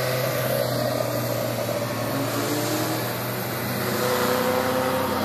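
Engines of small classic hill-climb race cars accelerating uphill as they pass one after another, the engine note steady at first and rising in pitch in the second half.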